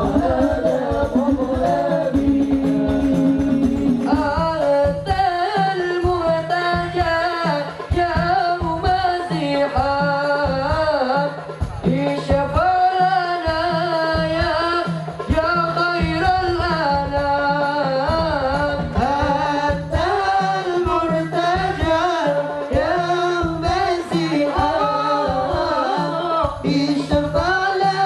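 Sholawat sung by a young male voice into a microphone over hadrah percussion, the frame drums and drum keeping a steady beat. The melody winds and ornaments on long notes, and a second male singer takes over the lead near the end.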